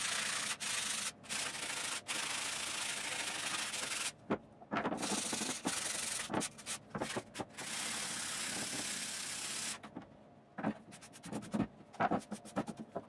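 Sandpaper rubbed by hand along the edge of a plywood longboard deck in long, steady strokes with short pauses. Near the end, a run of quick, short strokes as a brush sweeps the sanding dust off the deck.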